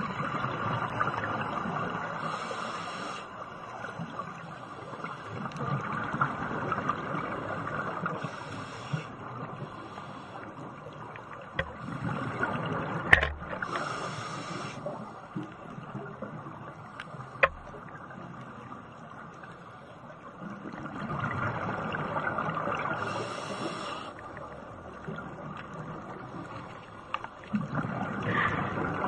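Scuba breathing through a regulator underwater: a short high hiss on each inhale and a swelling rush of bubbles on each exhale, repeating every several seconds. Two sharp clicks stand out near the middle.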